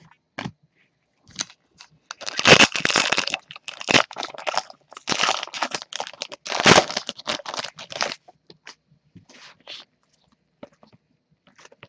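Foil wrapper of a Panini Prizm basketball card pack crinkling and tearing as it is ripped open by hand. The crackling comes in bursts from about two seconds in to about eight seconds, then gives way to a few light clicks as the cards are handled.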